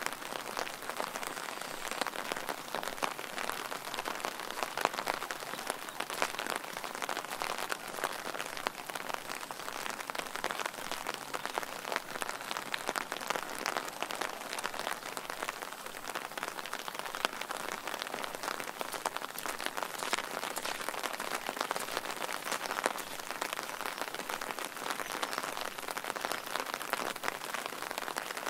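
Steady rain falling, a dense patter of close individual drops over an even hiss.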